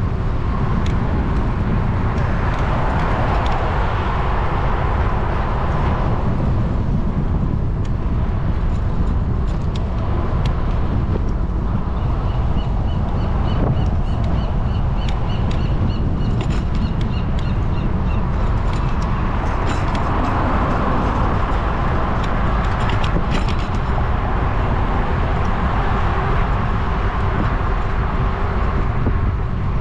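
Steady wind and road noise of a bicycle ride beside city car traffic. A rapid series of high chirps runs for about six seconds in the middle.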